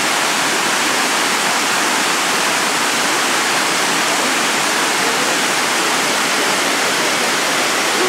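Waterfall pouring over mossy rock ledges into a pool: a steady, loud rush of falling water.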